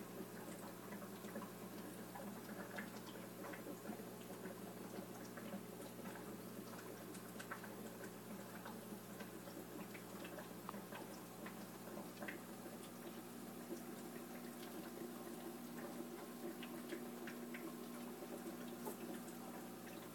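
Aquarium sponge filter's airlift tube bubbling: a stream of small air bubbles popping and splashing at the water surface, heard as faint irregular ticks over a low steady hum.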